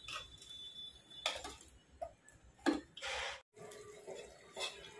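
Steel ladle stirring a thick tomato-onion masala in a pressure cooker pan: a few short scrapes and knocks against the metal.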